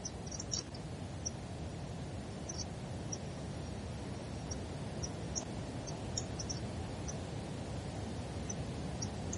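Steady low background noise with faint, irregular high-pitched ticks, roughly one or two a second.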